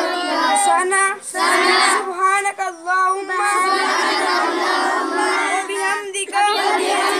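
A group of children reciting prayers aloud together in a chanted, sing-song unison, held mostly on one pitch.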